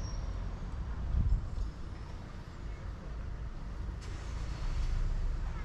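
Urban street ambience: an uneven low rumble of road traffic, swelling briefly about a second in.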